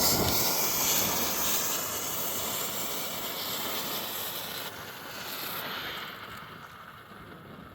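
Consumer smoke bomb hissing as it burns and pours out smoke: the hiss starts suddenly and slowly fades.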